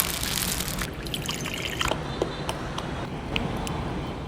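Liquid pouring into a dish as a steady trickle for about two seconds, then softer, with a few light clicks.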